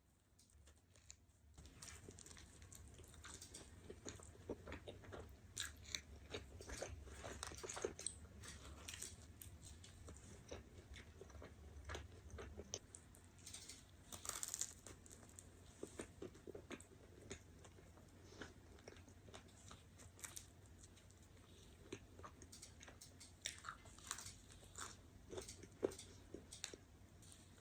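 A person chewing and biting into food close to the microphone: many short, irregular crunches and clicks, busiest in the first half and again near the end, over a steady low hum.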